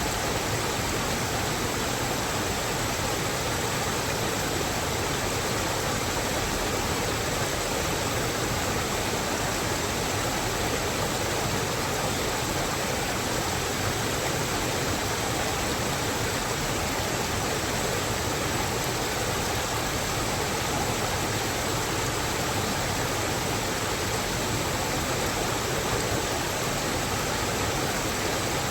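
Steady, even rushing of running water, unchanging throughout, with no distinct events.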